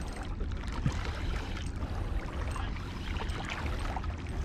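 Seawater lapping and splashing against shoreline rocks, over a steady low rumble.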